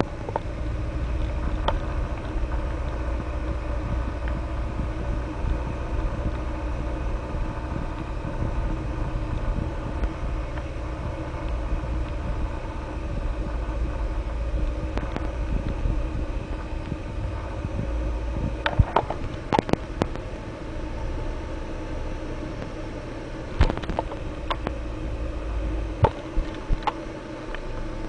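Diamond DA-20 Eclipse's four-cylinder piston engine and propeller droning steadily, heard inside the small cockpit, with a few sharp clicks or knocks in the second half.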